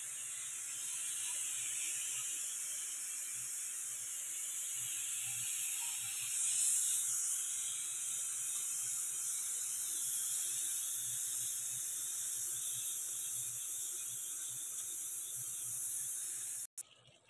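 Pressure cooker hissing steadily as steam escapes from the lid. The high hiss cuts off suddenly near the end.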